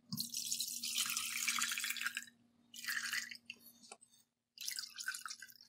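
Milk and mango pudding mixture poured from a pan through a stainless-steel mesh strainer into a glass bowl: a splashing pour for about two seconds, then two shorter trickles through the mesh.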